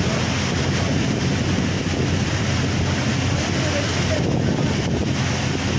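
Heavy rain and floodwater rushing past a vehicle in a flooded street: a loud, steady wash of noise.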